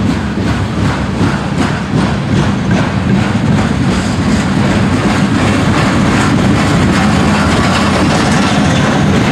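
Freight cars loaded with waste containers rolling past: a steady rumble of steel wheels on rail, with the wheels clicking over rail joints most plainly in the first few seconds.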